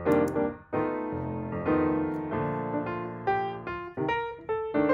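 Piano music, a running melody of struck notes.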